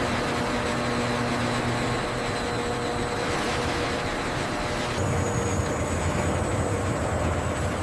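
Steady machine noise with a low hum and a faint high whine, changing abruptly about five seconds in.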